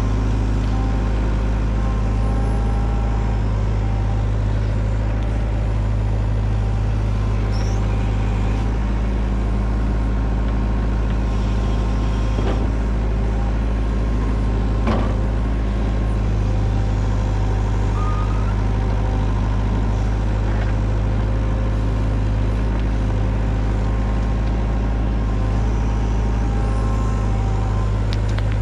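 Hyundai Robex mini excavator's diesel engine running steadily under working load, with its hydraulics, as the bucket digs; a couple of short knocks are heard near the middle.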